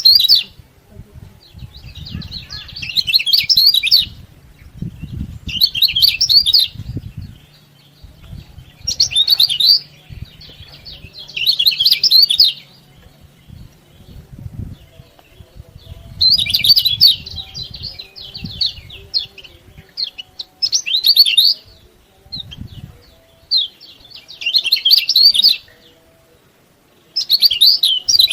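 Kecial kuning white-eye singing in fast, chattering bursts of about a second each, repeated every two to three seconds.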